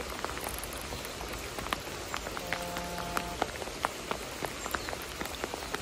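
Rain falling, with a steady hiss and scattered drops ticking irregularly on a nearby surface.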